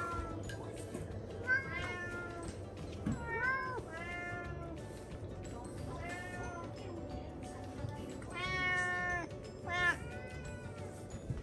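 Domestic cats meowing again and again, short rising-and-falling meows with one longer drawn-out meow about eight seconds in, as they beg for the food in a person's hand.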